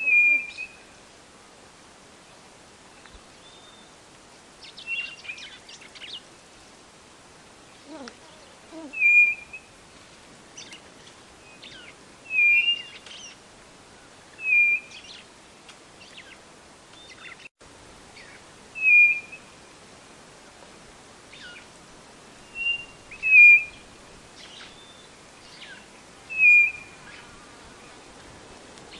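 White-bellied nothura (codorna-do-nordeste) calling: a short, sharp whistled note repeated every two to four seconds, with fainter chirps between the notes.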